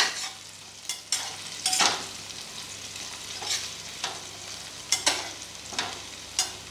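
Cubed potatoes browning in hot oil in a metal pot, sizzling steadily, while a metal spatula stirs them, scraping and clinking against the pot about once a second.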